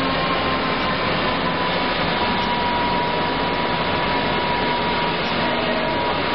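Semi-automatic folder gluer for corrugated cardboard boxes running steadily as it feeds boards. The machine makes an even mechanical noise with a faint steady whine.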